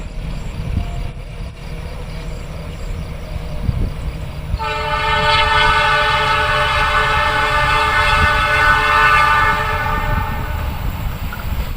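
Train rumbling past, then the locomotive's horn sounds one long held blast of about six seconds, starting about four and a half seconds in and fading near the end. This is the long horn signal (semboyan 35) that trains are required to give at this spot.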